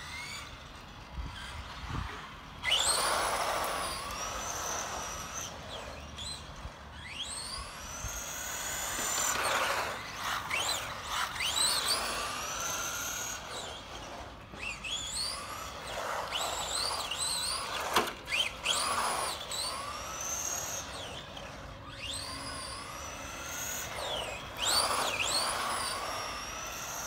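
Tamiya TT02T Sand Shaker RC truck's electric motor and gears whining, the pitch sweeping up and down again and again as it speeds up and slows, over a rush of tyres on asphalt. One sharp knock about two-thirds of the way through.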